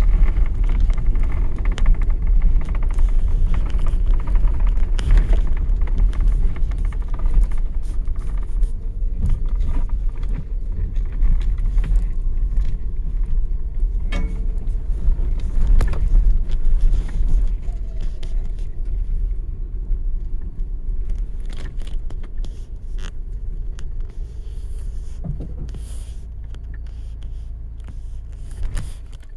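Vehicle cabin noise from driving slowly over a rough dirt two-track: a steady low rumble with scattered knocks and rattles from the bumpy ground, growing quieter toward the end.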